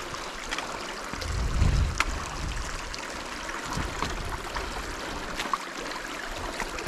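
Stream water running, a steady rushing hiss, with a brief low rumble about a second and a half in and a few small ticks.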